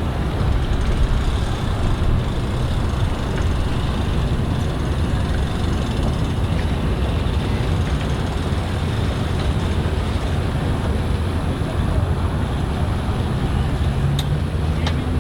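Engines running at a steady idle, a continuous low rumble with wind and water noise over it.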